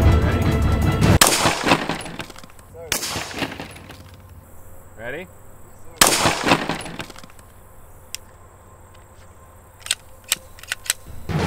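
A single shot from a Glock 19 pistol fitted with a SilencerCo Osprey suppressor, about six seconds in. The 9mm bullet smashes through a row of iPhones. A few light clicks follow near the end.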